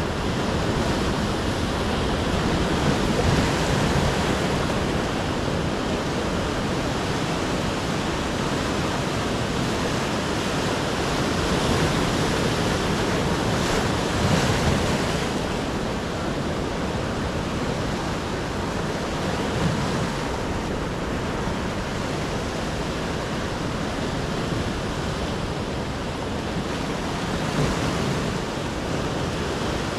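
Ocean surf: waves breaking and washing in as a continuous rushing noise that swells louder a few seconds in and again around the middle.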